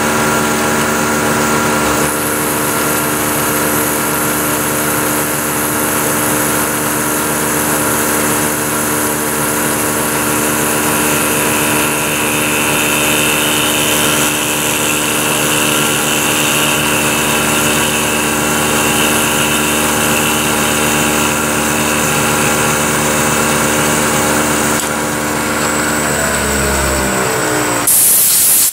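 Milling machine running with a small end mill cutting a slot along a threaded steel spindle: a steady motor and spindle hum with a high cutting whine. This is a light side pass taking about a thousandth off the groove wall to bring it to width. Near the end the spindle is switched off and winds down, falling in pitch, and then a short hiss of compressed air from a blow gun clears the chips.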